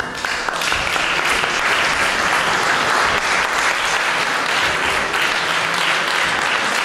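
Audience applauding: dense, steady clapping that swells in the first half second and then holds.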